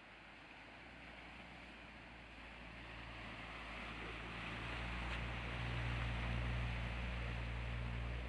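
Land Rover Discovery's engine running steadily as it wades through a deep ford, with water rushing and churning around the vehicle. Engine and water grow louder as it approaches and are loudest about two-thirds of the way through, as it passes close by.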